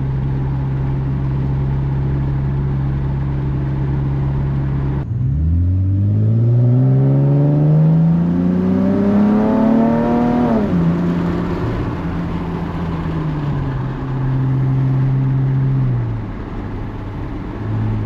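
2018 Ram 1500's 3.6-liter Pentastar V6 through a Magnaflow Pro Series turn-down cat-back exhaust, heard from inside the cab with the windows down. It cruises steadily, then accelerates with the note rising for about five seconds until an upshift drops it, runs steady again, and falls away near the end.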